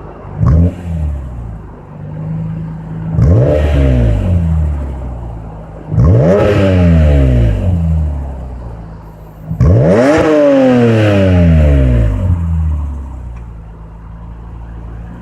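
BMW E46 M3's 3.2-litre S54 straight-six through a full Magnaflow exhaust, idling and revved four times: a short blip about half a second in, then three bigger revs a few seconds apart, each climbing quickly and falling back to idle.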